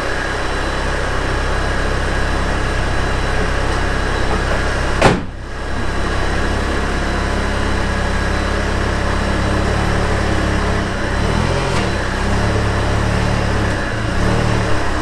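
An engine or motor running steadily, with a sharp click about five seconds in.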